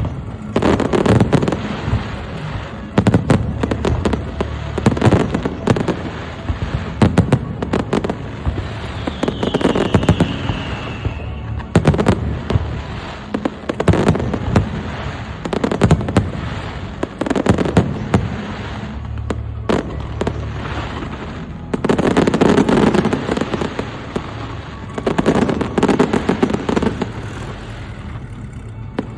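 Fireworks display: aerial shells bursting again and again, with booms and crackling in clusters every second or two. About nine seconds in there is a brief falling whistle.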